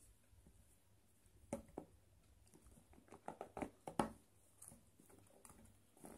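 Faint taps, scrapes and rustles of hands handling a cardboard smartphone box and working its lid loose, with a sharper tap about four seconds in.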